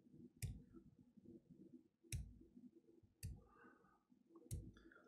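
Four sharp, separate keystrokes on a laptop keyboard, about a second apart, over quiet room tone.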